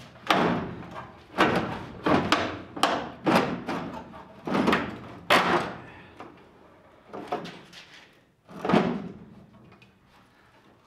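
Rusty steel bed side panel of a 1971 Chevy pickup being wrenched back and forth by hand to break it off, clanking and creaking with each bend: about nine sharp metal clanks at uneven intervals, the later ones farther apart.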